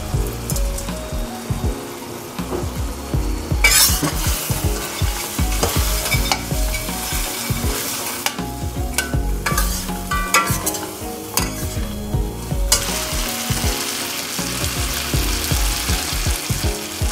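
Fried chicken pieces sizzling in a thick sauce in a stainless steel wok while being stir-fried with a spatula, with repeated scrapes and clinks of the spatula against the wok. The sizzle dips twice, about eight and eleven seconds in.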